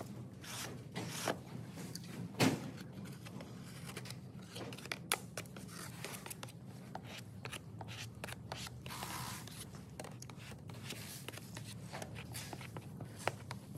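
Hand sanding of cured body filler on a plastic bumper with a sanding block: short, irregular scratchy strokes and light clicks, over a low steady hum.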